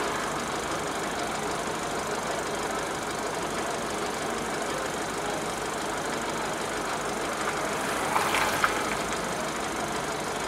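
Mercedes 208 D van's diesel engine running steadily, heard from inside the cab, with a short louder noise about eight seconds in.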